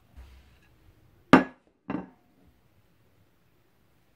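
Two hard knocks about half a second apart, the first louder: a frozen-solid block of thin-sliced meat knocked down onto a plastic cutting board.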